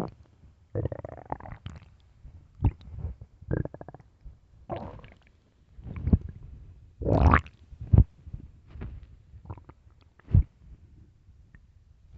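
A person's stomach growling: a string of irregular gurgles and rumbles of varying length, one with a short buzzing tone, the longest and loudest a little past halfway.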